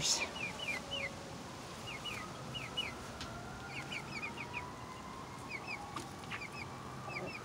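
Young pullets peeping with a chick's voice: short, high chirps, each sliding downward, in quick runs of two or three throughout.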